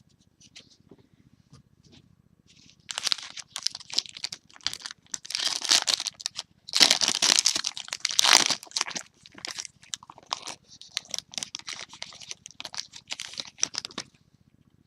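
Plastic trading-card pack wrapper being torn open and crumpled, a dense irregular crinkling and crackling that starts about three seconds in and is loudest in the middle.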